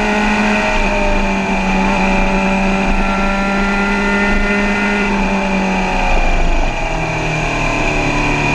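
Suzuki sport motorcycle's engine running steadily at road speed, heard from the rider's seat under a rush of wind noise. About six and a half seconds in, the engine note drops to a lower pitch as the revs fall.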